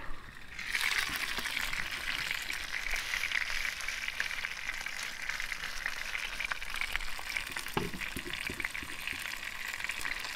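Roast pork loin and vegetables sizzling in a hot pan inside an open Akorn Jr kamado charcoal grill: a steady hiss full of fine crackles as the fat fries. A few soft knocks near the end.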